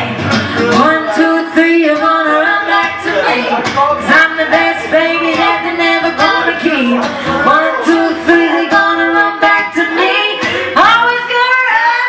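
Two women singing live to a strummed acoustic guitar, one voice carrying the melody over steady chord strums. A new, strongly sung phrase begins near the end.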